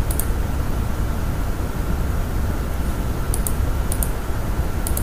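A few scattered clicks from computer keyboard keys, one at the start, a pair a little after three seconds, then one at four seconds and one near the end. They sound over a steady low hum with a faint steady high tone, which is the loudest part of the sound.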